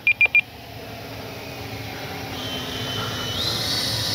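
A few quick radio-transmitter trim beeps at the start, then the Freewing Mirage 2000 V2's 80 mm, 12-blade electric ducted fan whining in flight. The whine steps up in pitch a little past three seconds in, and the sound slowly grows louder.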